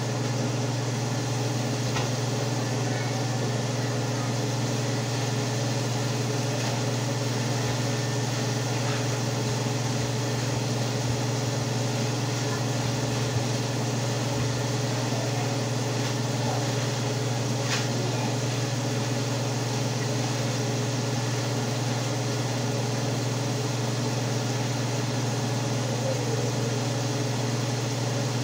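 Steady low hum of a small electric motor, with a couple of faint clicks.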